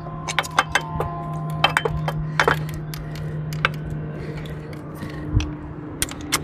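Hand tools clinking and tapping against metal engine parts in an irregular run of sharp metallic clicks, as the oil cooler's hose clamps are worked.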